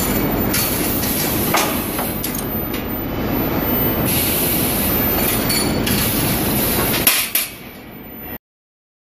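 Steady, loud machinery din from an induction heating line heating steel rivet bars to glowing, with a few sharp metallic knocks. It drops away about seven seconds in and cuts off suddenly a second later.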